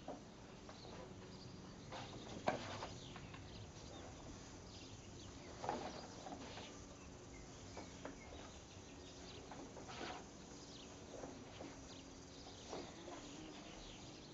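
Scattered thumps and short swishes of feet stepping and stamping on a wooden deck while a pair of tonfa is swung through a form, the sharpest knock about two and a half seconds in. A faint outdoor background lies underneath.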